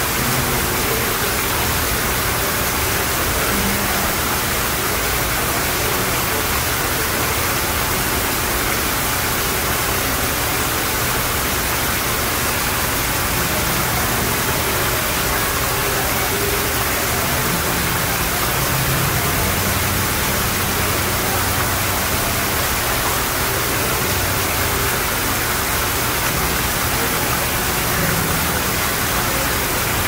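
Small rock waterfall spilling steadily into a koi pond: a constant, even rush of falling and splashing water.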